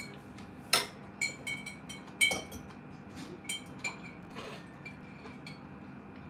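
Metal cutlery clinking against crockery in a string of sharp, short-ringing clinks: two loud ones about a second and two seconds in, then sparser, fainter ones.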